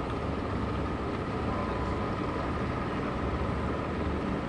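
Steady rumble and hiss heard from aboard a boat under way on the water, with a faint steady high whine running through it.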